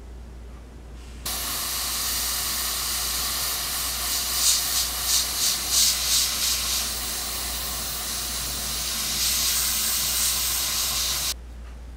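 Airbrush spraying paint: a steady hiss of compressed air that starts suddenly about a second in and cuts off near the end. In the middle, the spray swells and dips several times in quick succession as the trigger is worked.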